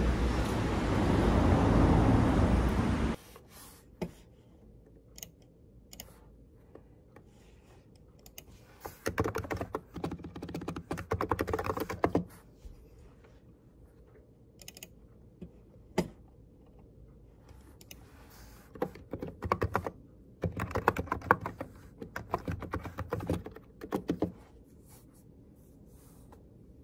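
Outdoor street traffic noise for about three seconds, cutting off suddenly. Then keys typed on a computer keyboard: a few single key clicks with pauses, and several quick bursts of typing.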